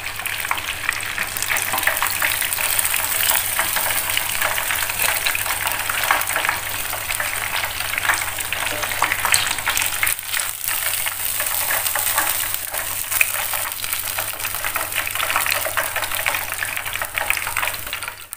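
Breaded chicken katsu cutlets deep-frying in hot oil in a pan, a steady crackling sizzle from cutlets fried golden brown. It cuts off abruptly at the very end.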